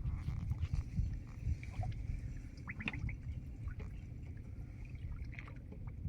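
River water sloshing and dripping around a fishing boat while a hilsa gill net is hauled aboard, with scattered small knocks and a low, uneven rumble.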